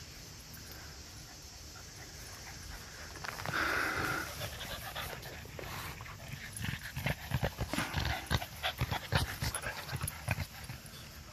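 A dog panting close by, the quick breaths loudest and densest in the second half.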